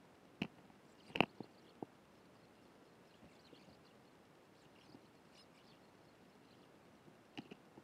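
Eurasian tree sparrows at a seed feeder: a few sharp taps and knocks from pecking and landing, the loudest just over a second in and another pair near the end, with faint high chirps between them.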